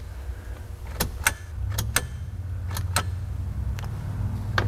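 Sharp clicks, about seven, irregularly spaced, from working the light switches of a 1990 Chevy truck while testing the high beams, over a low steady hum that swells about two seconds in.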